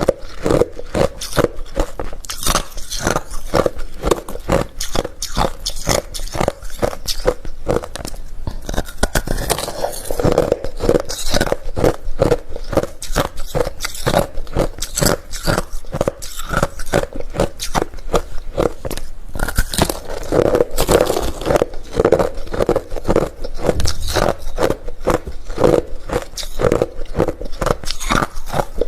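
Hard refrozen crushed ice being bitten and chewed, a steady run of sharp crunches, several a second.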